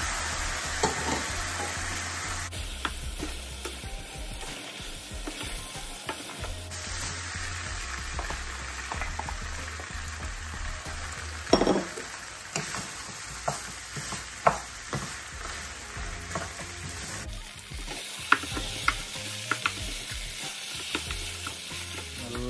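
Beef and bone pieces sizzling as they fry in a coated frying pan, being reduced to a dry roast, with a steady hiss. A wooden spatula stirs them, knocking against the pan with sharp clicks now and then, the loudest about halfway through and several in quick succession near the end.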